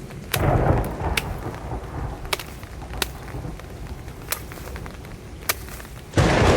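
Thunder rumbling in a rainstorm: a low rumble just after the start and a louder one near the end, over steady rain, with scattered sharp clicks in between.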